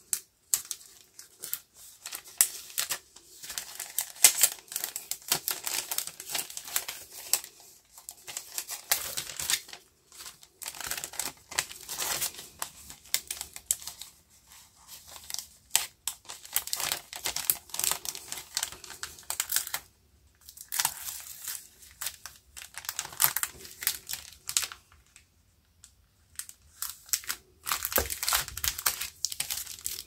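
Clear plastic card sleeves crinkling and rustling as cards are slid into them and handled, in irregular bursts with short pauses between.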